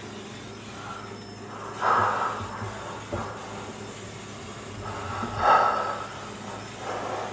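Breath-like noisy bursts over a steady low hum: a loud one about two seconds in, a louder one about five and a half seconds in, and a weaker one near the end.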